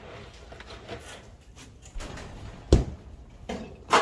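Knocks and thumps of gear being handled, with one heavy thump about two-thirds of the way through. A sharp knock near the end is followed by a brief metallic ring.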